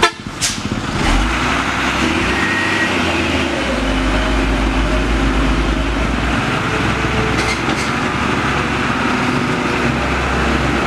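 Diesel engine of a heavily loaded Mitsubishi Fuso dump truck running steadily under load as it crawls through deep mud, with a motorcycle engine passing close by.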